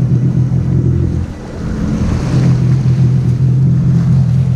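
Sea-Doo jet ski engine running steadily, with wind on the microphone and sea water. The engine note drops briefly about a second and a half in, then comes back.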